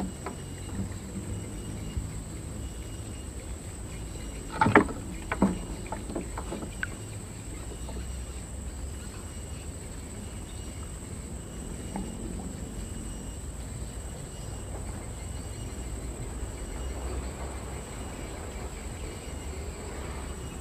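A few sharp knocks and clatters in a small wooden boat about five seconds in, from handling fishing gear, with one lighter click later. Under them runs a steady outdoor background with a constant high insect buzz.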